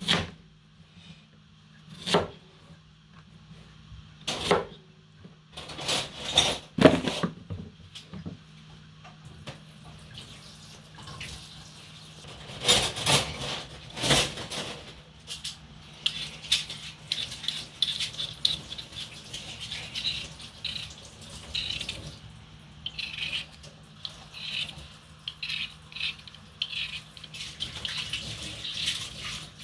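Potatoes being peeled by hand with a vegetable peeler: scraping strokes that become a steady run of small scratchy ticks in the second half. Several sharp knocks in the first half, as potatoes are handled on the board and dropped into the bowl.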